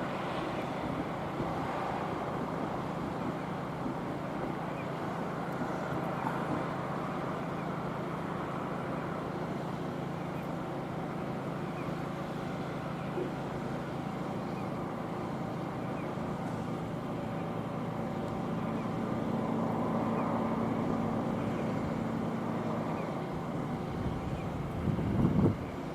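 Steady hum of a railway vehicle's machinery with a couple of held tones, swelling slightly and rising a little in pitch past the halfway point; gusts buffet the microphone near the end.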